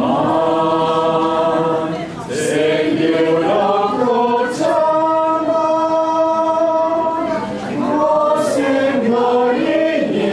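A mixed choir of men and women singing a song in Cantonese, with a long held note in the middle.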